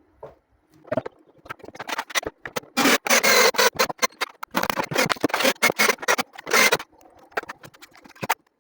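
Irregular scraping, rustling and clattering of small parts being handled on a work surface, coming in bursts with short pauses, loudest about three seconds in and again around five to six and a half seconds.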